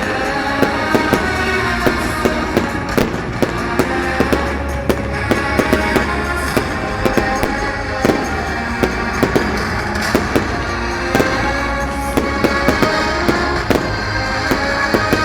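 Fireworks going off in frequent, irregular sharp bangs and crackles, over music that plays throughout.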